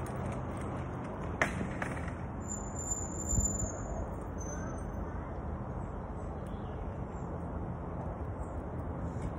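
Steady outdoor background noise with a low hum. A sharp click comes about a second and a half in, and a dull thump follows about two seconds later.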